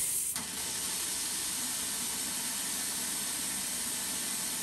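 3D-printed rocket engine swirl injector spraying water atomized by compressed air in a cold-flow test: a loud, steady hiss that starts suddenly.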